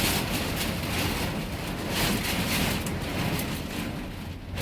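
Heavy storm rain and gusting wind, a dense rushing noise that surges and eases, dropping briefly near the end.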